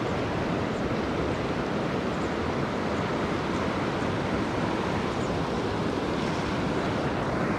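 Fast-flowing river water rushing steadily, an even, unbroken wash of current.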